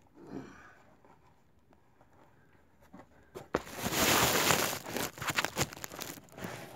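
Kindling being split with a hatchet on a chopping block: a few knocks, then a loud rough crackling and rustling burst about a second and a half long, with scattered knocks after it.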